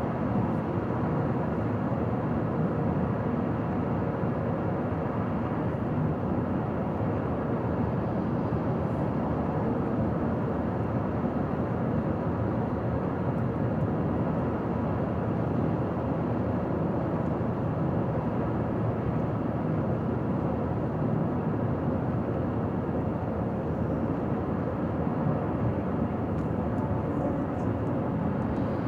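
Car driving at highway speed: a steady rush of tyre, road and engine noise.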